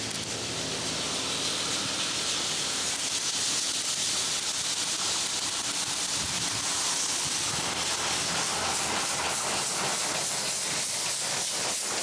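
DT668 steam locomotive passing close by with a loud, steady hiss of steam. Over the last few seconds a rhythmic clatter of train wheels builds up under the hiss.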